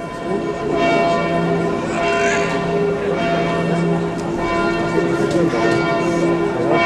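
Several alphorns sounding together, starting just after the opening with long held notes in a low chord that carries many overtones.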